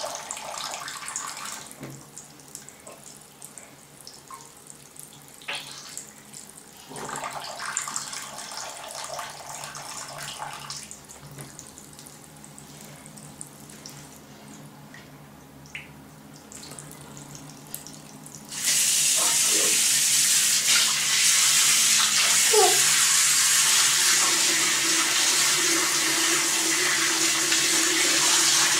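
Bathroom washbasin tap running a thin stream into the sink, with small splashes off things held under it. About two-thirds of the way through, the tap is opened wider and the water suddenly becomes a loud, steady gush into the basin.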